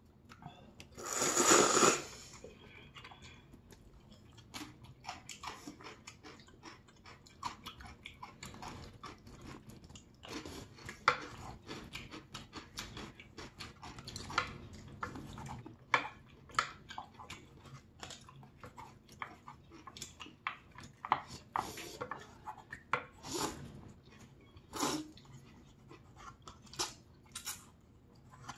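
Close-miked eating sounds from noodles being slurped and chewed: a loud slurp about a second in, then many small wet smacks and clicks of chewing and chopsticks throughout.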